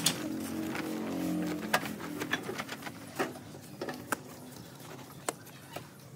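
A hoe scraping and chopping through a pile of sand and cement powder as it is dry-mixed by hand, with irregular sharp knocks as the blade strikes the ground. A low hum runs through the first two seconds.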